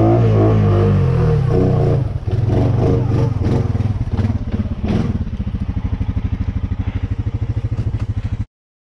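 Honda Rubicon 520 ATV's single-cylinder engine running hard through a mud trail, with knocks and scrapes from about two to five seconds in. It then settles into a lower, evenly pulsing run before cutting off suddenly near the end.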